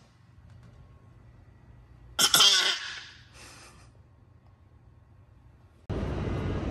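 A single short cough or throat-clearing about two seconds in, with a fainter follow-up a moment later. Near the end a loud steady rushing noise cuts in abruptly.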